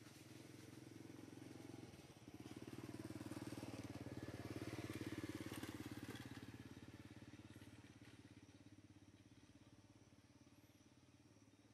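A faint engine running, growing louder to a peak about five seconds in and then fading away, as a passing motor vehicle does.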